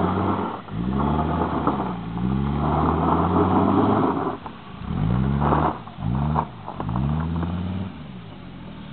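Mercedes 2.5-litre five-cylinder turbo diesel, its P-pump injection pump turned up for extra fuel, revving hard as the car pulls away. The pitch climbs and falls through a series of rev-ups, with several quick ones about halfway through, then settles lower near the end.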